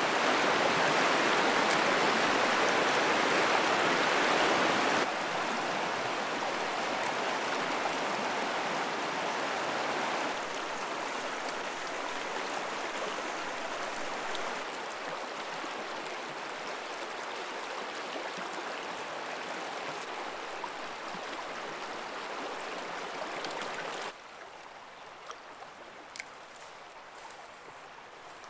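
Rushing creek water, a steady hiss of flowing whitewater. Its loudness drops in sudden steps about 5, 10 and 24 seconds in.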